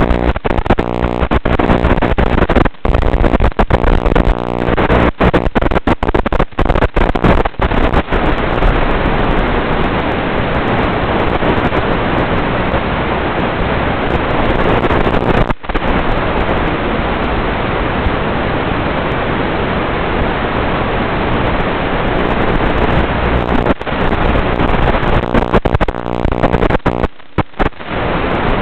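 Steady rushing static with a buzz from an FPV drone's analog video link, recorded from the receiver during an indoor flight. It breaks off in many short dropouts as the signal cuts in and out.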